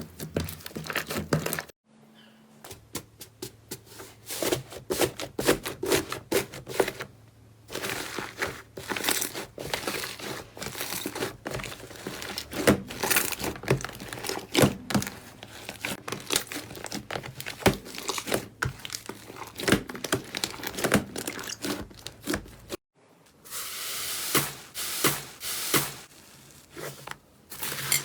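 Slime being squeezed and pressed by hand, giving dense, irregular crackling and popping clicks. The sound breaks off sharply twice as one clip gives way to the next.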